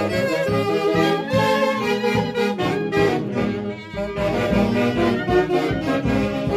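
Andean folk street band of clarinets and saxophones playing a melody together while marching. Low bass-drum beats come in about four seconds in.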